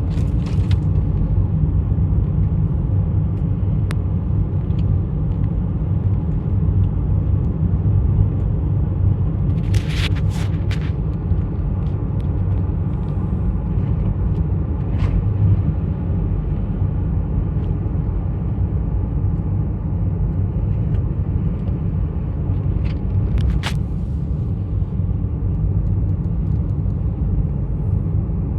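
Steady low rumble, with a few short clicks about ten seconds in and again a little before the end.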